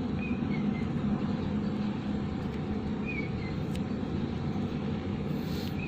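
Steady low background hum, with two faint brief high chirps, one early and one about three seconds in.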